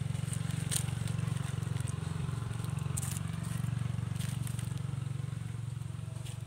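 A steady low hum that eases a little near the end, with a few faint crackles and scrapes as a young macaque handles leaves and string on the ground.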